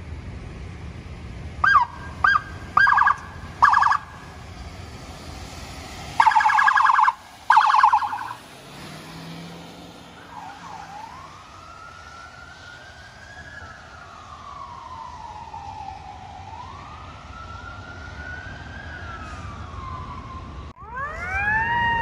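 Emergency vehicle sirens and horns: several short siren yelps over engine rumble, then two loud horn blasts about a second apart. After that a slow, fainter siren wail rises and falls for about ten seconds, and near the end a louder siren sweeps up.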